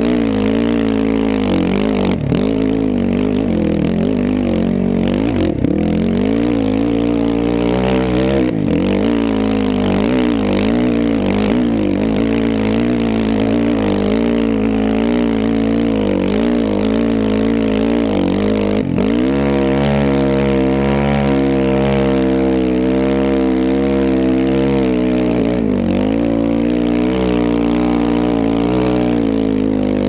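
Dirt bike engine pulling under load up a steep hill, its pitch rising and falling with the throttle, then holding steadier for the last ten seconds or so. A few sharp knocks cut in along the way.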